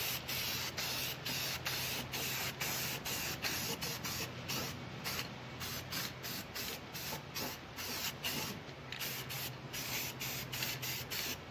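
Aerosol spray-paint can hissing as a coat of paint is sprayed on, in a steady run broken by quick short gaps about three times a second.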